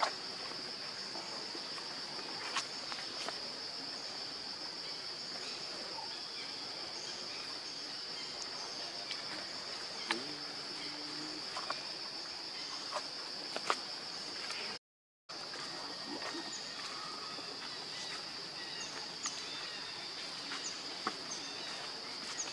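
Steady, high-pitched drone of insects, with a few faint clicks and rustles over it; the sound cuts out for a moment about two-thirds of the way through.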